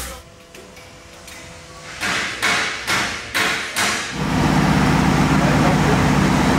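About five hammer blows, a little under half a second apart. Then, about four seconds in, the Vögele Super 1800-2 asphalt paver's diesel engine starts running steadily.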